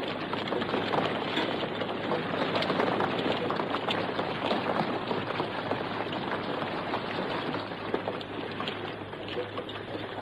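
A column of soldiers marching: many boots tramping together in a dense, steady crackle of footfalls.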